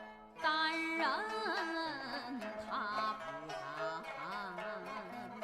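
Background music: a traditional-style melody with wavering, gliding notes entering about half a second in over a held low note.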